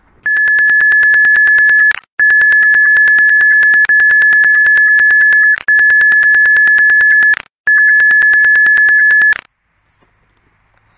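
Loud, high-pitched censor bleep tone, sounded five times in a row with short breaks, laid over swearing.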